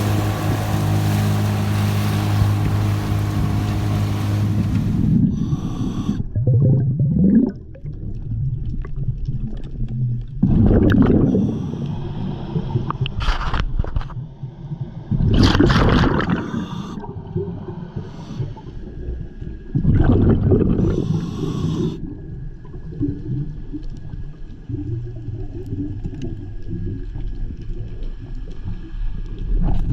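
Boat engine running steadily, cutting off about five seconds in. Then irregular gurgling water sounds with a few louder rushing bursts.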